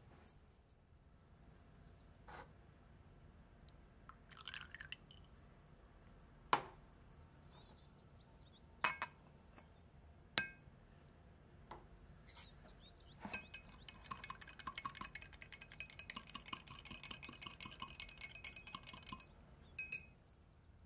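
Utensils clinking against a glass measuring jug, three sharp clinks in the first half, then a wire whisk beating rapidly against the inside of the glass jug for about five seconds as oil and paprika are mixed.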